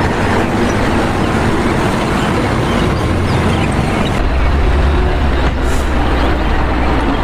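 Dump truck engine running, a loud steady rumble with a wash of noise over it. The deep rumble grows heavier a little past halfway through.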